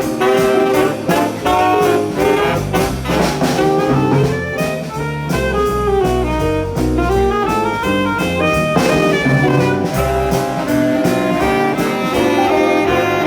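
Live jazz band playing an instrumental swing passage, saxophone and brass carrying the melody over a walking bass and drums, with a rising run of notes midway.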